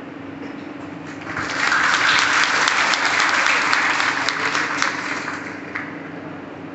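Audience applauding: the clapping swells about a second in and dies away after about five seconds, over a steady low hum.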